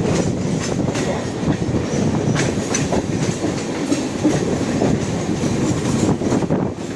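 A train running at speed on the track: a steady rumble and rush with wheels clicking irregularly over rail joints.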